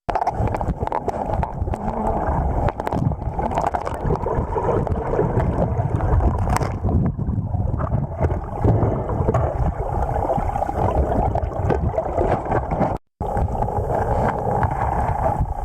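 Steady muffled rushing and gurgling of river water, as picked up by a camera held underwater in the current.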